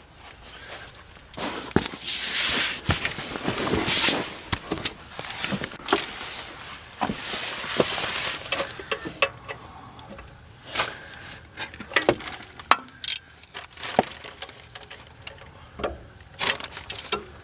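Metal hand tools clinking, scraping and clicking in irregular knocks, with a few longer scraping or rustling stretches.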